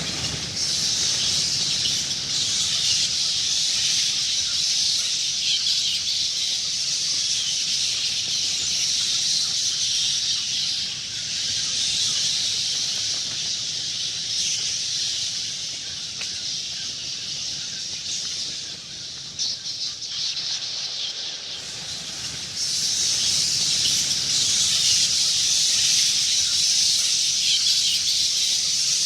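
A swarm of bats squeaking all at once in a dense, shrill mass of high calls. It thins and quietens for a couple of seconds about twenty seconds in, then comes back louder.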